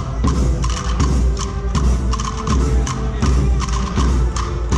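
Procession band music: sharp drum strokes about twice a second over sustained held notes.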